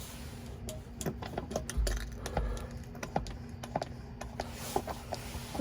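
Hand-operated fluid pump on a gear-oil bottle being worked to fill a van's differential: irregular plastic clicks and short squeaks from the plunger and fittings, with a couple of low thumps about two seconds in.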